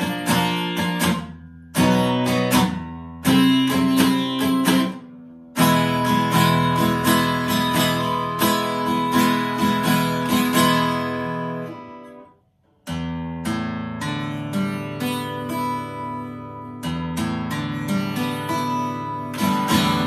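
A 1978 Hohner HG 730 jumbo acoustic guitar, all solid wood with Macassar ebony back and sides, strummed in full ringing chords. It breaks off briefly about twelve seconds in, then carries on. Its tone is bright and blaring, an abrasive sound that the owner puts down to the Macassar ebony.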